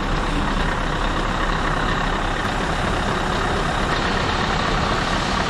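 Scania R500's V8 diesel engine running steadily at low revs.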